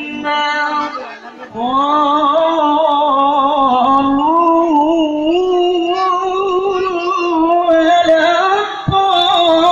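A single voice singing long, held notes that waver up and down in slow ornaments, broken only briefly about a second in. A short thump sounds near the end.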